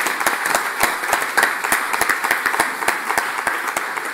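Audience applauding: many hands clapping in a steady patter, easing slightly near the end.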